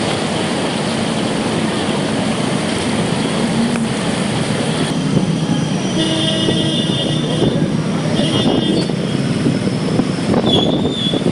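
Traffic on a flooded city road: a steady noise of vehicle engines and tyres through standing water, with a few short high-pitched tones about six and eight seconds in and again near the end.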